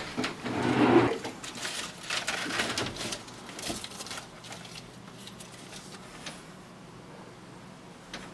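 Hurried rummaging through things on a desk. A loud burst of knocking and rustling comes about a second in, then scattered clicks and rustles that die away after about four seconds.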